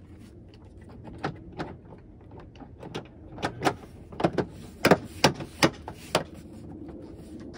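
Plastic liftgate trim panel of a Toyota RAV4 being pressed on by hand, its push-pin clips snapping into place in a series of sharp clicks that come closest together and loudest between about three and six seconds in.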